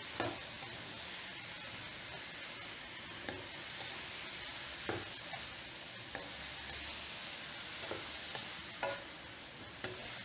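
Diced bottle gourd sizzling in a nonstick wok as it is stirred with a spatula: a steady frying hiss with several short knocks of the spatula against the pan.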